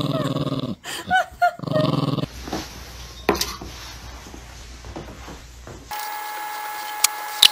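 Small dog growling in two loud bouts with short yips between, in the first two seconds or so. Then quieter clicks and thuds, and near the end a steady held tone begins.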